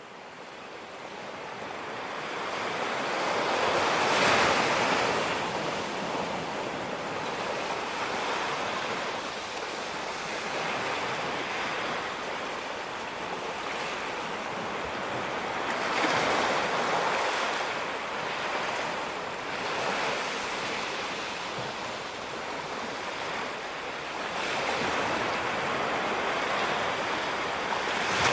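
Ocean surf washing onto a beach, fading in over the first few seconds. It is a steady rush of water that swells louder each time a wave breaks, every several seconds.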